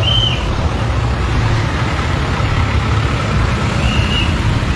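Road traffic: a steady low rumble of large vehicle engines passing close. A brief high-pitched sound comes right at the start and again about four seconds in.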